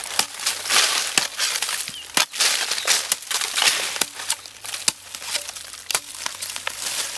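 A long-handled digging tool chopping into dry, hard earth, with sharp strikes about once a second and crumbling soil and dry leaves crackling between them.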